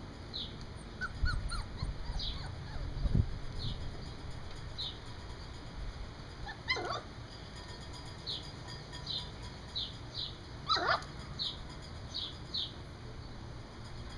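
Four-week-old standard poodle puppies whimpering, with two falling whines, one about halfway through and one a few seconds later, over a run of short high chirps. A few low thumps sound in the first three seconds.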